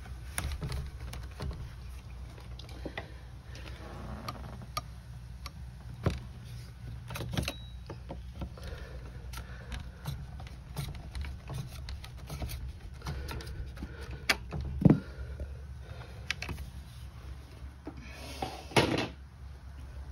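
Scattered clicks and knocks of a wide-bladed scraper being worked in behind the glazing bead of a UPVC door panel to prise the bead out. One sharper knock about fifteen seconds in, and a short scuffling noise near the end.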